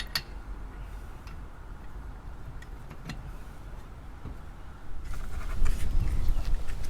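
Scattered metallic clicks and clinks of wheel nuts and a wheel wrench while a car wheel is being taken off, with a sharp click at the start. About five seconds in, a louder low rumble of handling noise begins, with more clicks.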